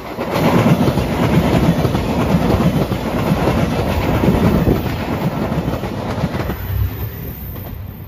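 JR Shikoku 2700 series diesel express train passing close by, its engines running and its wheels rumbling and clattering along the rails. The sound is loudest through most of the pass and fades near the end as the train draws away.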